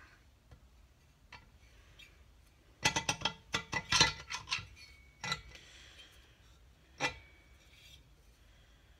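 Light metallic clicks and knocks as a motorcycle engine's finned cylinder barrel is worked by hand down over the barrel studs and pistons: a quick cluster of clicks about three to five seconds in, then single clicks a little later.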